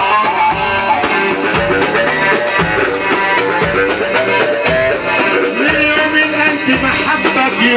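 Egyptian sha'bi wedding music played live: an instrumental passage with a winding melody over a driving percussion beat, with a steady high jingle ticking in time.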